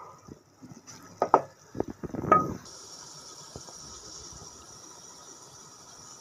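A wooden spoon knocks and scrapes against a steel cooking pot a few times, the pot giving a short ring on the last knock. A steady soft high hiss starts about two and a half seconds in.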